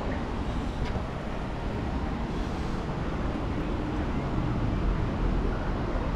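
Steady urban ambience: a continuous low rumble with faint distant voices.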